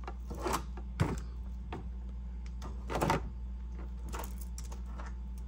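A few soft clicks and rustles of handling, about four in all, over a steady low hum.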